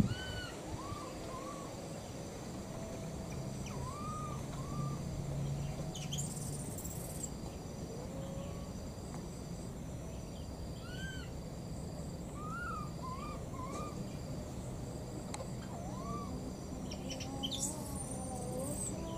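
Baby macaque giving short, high, rising-and-falling coo calls, singly and in pairs, again and again: an infant's calls for its missing mother. A faint, evenly spaced high pipping runs behind, with brief rustles twice.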